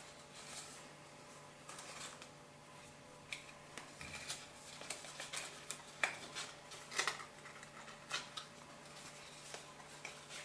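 Faint rustles and light taps of card and paper being handled and pressed into place, becoming busier about three seconds in, over a faint steady hum.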